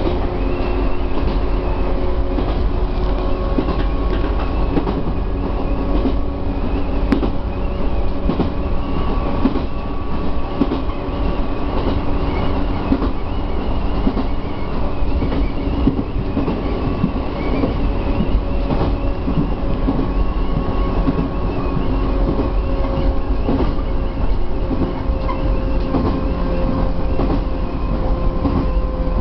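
Chichibu Railway 1000 series electric train (a rebuilt former JNR 101 series) running along the line, heard from the driver's cab: a steady low rumble and whine, with the wheels clicking irregularly over rail joints.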